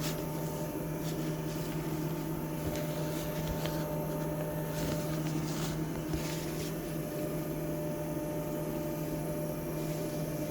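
Steady electrical machinery hum made of a few constant tones, with a few faint clicks in the middle.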